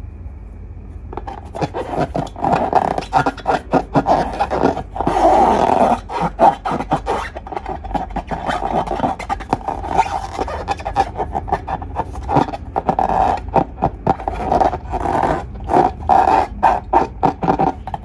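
Long rubber balloons and slime being handled close up: squeaky rubbing and sticky crackles in quick, irregular strokes, starting about a second in.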